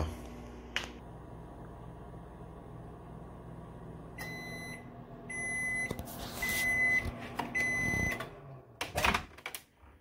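GE over-the-range microwave oven running with a low steady hum. About four seconds in, four long beeps about a second apart signal the end of the cooking cycle. A few clicks follow near the end as the door is opened.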